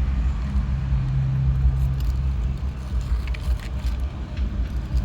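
Steady low mechanical hum, with a few faint light clicks about three to four seconds in.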